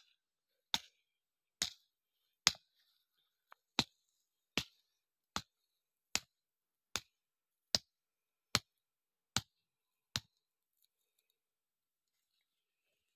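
A steady series of sharp ticks, about one every 0.8 seconds, thirteen in all, stopping about ten seconds in.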